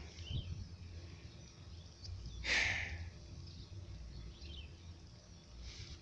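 Rural outdoor ambience: faint short bird chirps over a low rumble, with one short rustling hiss about two and a half seconds in.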